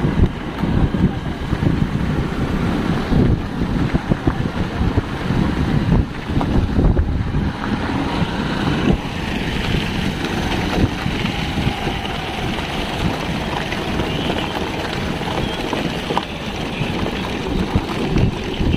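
Wind buffeting the microphone: an uneven, gusty low rumble with hiss above it.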